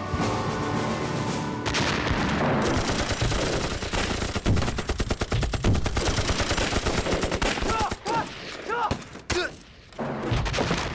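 Battle sound effects: dense, rapid gunfire with machine-gun fire among it, over a heavy low rumble of blasts. Near the end the firing thins out and men's shouts break through.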